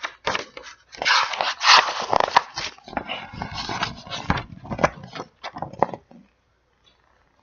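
A dog making a quick run of short, irregular yaps and noises, stopping about six seconds in.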